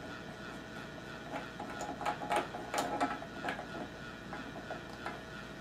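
White PVC union nut being screwed by hand onto a thread-taped brass pipe fitting: a run of small scratchy clicks and rubs of plastic on brass and tape, bunched in the middle, over a faint steady hum.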